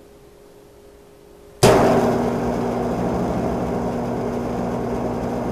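An electric football game board is switched on about a second and a half in and runs with a steady vibrating buzz and mains hum. The plastic power bases chatter on the vibrating field as two bases push head to head in a strength test.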